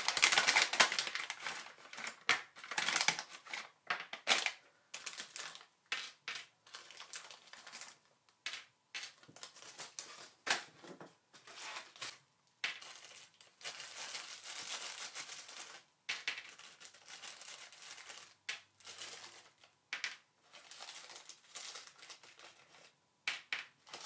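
Small plastic parts bag crinkling as it is opened and handled, loudest in the first few seconds. Then irregular light clicks and clinks of small metal parts (corner brackets, T-nuts and screws) being set down on a cutting mat, with more bag rustling in between.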